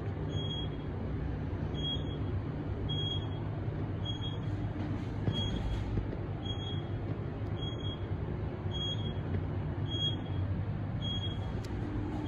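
Otis traction elevator cab riding, a steady low hum and rumble. A short high beep repeats about once a second.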